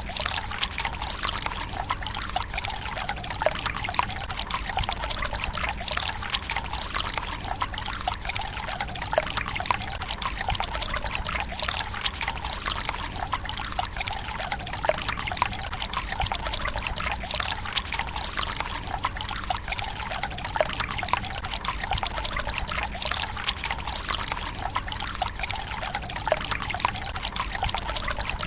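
Water from a tsukubai's bamboo spout pouring and trickling steadily into its stone basin, with many small splashes and drips.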